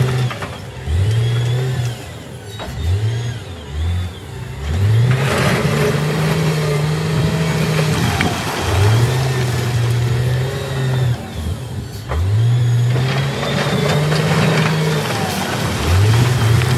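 SDLG wheel loader's diesel engine revving up, holding and dropping back again and again as the bucket shoves a pile of broken rock forward. The rock grinds and tumbles down the bank into the water in bursts.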